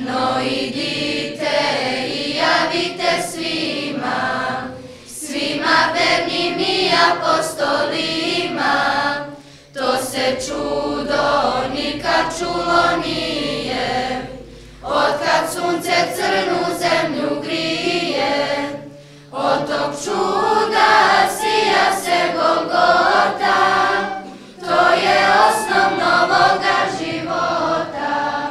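Choir singing a song in phrases about five seconds long, with short breaks between them.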